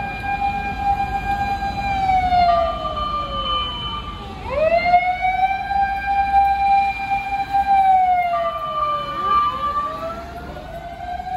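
Fire engine sirens wailing as the trucks pass: a tone that holds steady, slides down, then sweeps back up, repeating about every five seconds, with a second siren overlapping near the end. Truck engines and traffic rumble underneath.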